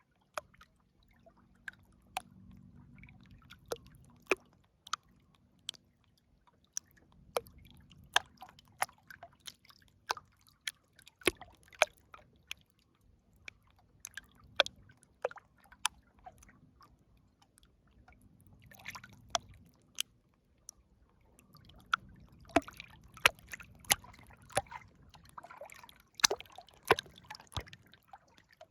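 River water sloshing and dripping close to the microphone: irregular sharp plops and drips over soft, swelling sloshes every few seconds.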